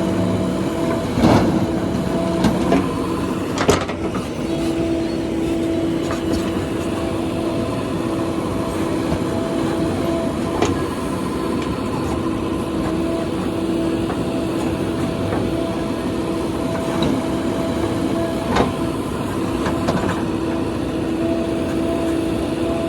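JCB 3DX backhoe loader running while it loads soil, a steady droning engine and hydraulic hum. A few sharp knocks come through it, the loudest about one and four seconds in.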